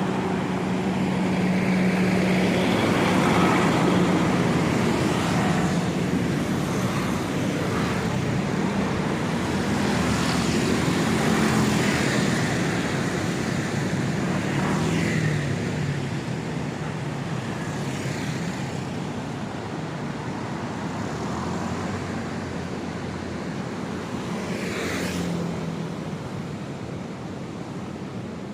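City street traffic: cars and other vehicles passing by, with passers-by's voices in the background. About 25 seconds in, one vehicle passes close, its pitch sweeping as it goes by.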